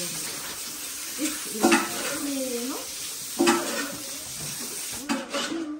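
Wooden mallet thudding into steamed rice in a mochi mortar, three strikes about two seconds apart over a steady hiss.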